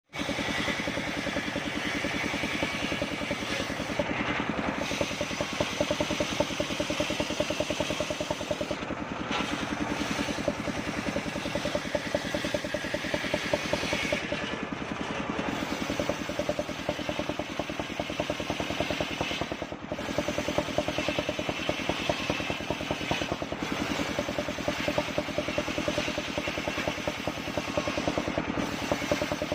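Engine driving a home-built circular sawmill, running steadily.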